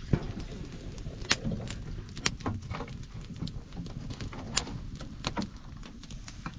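Metal serving spoon scraping and knocking against a metal pot and steel plates as thick dhido is served out, with sharp, irregular clinks every second or so.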